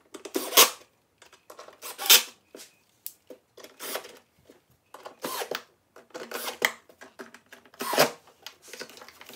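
Cordless screwdriver tightening the small bolts of an air filter housing back down, in about six short bursts roughly every second and a half.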